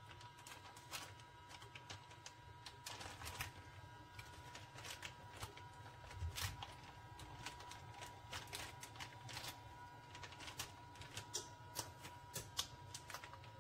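Plastic Ziploc bags being handled in a sous vide water bath: scattered light crinkles and clicks from the bags and a clip, over a faint steady hum.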